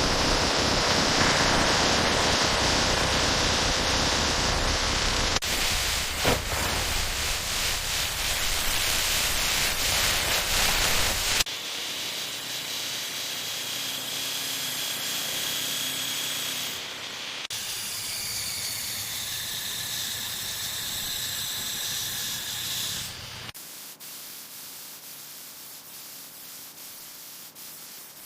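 A run of spraying hiss sounds, each about six seconds long and cut off sharply into the next. The first two are loud and full. The later ones are quieter and carry faint thin whistling tones.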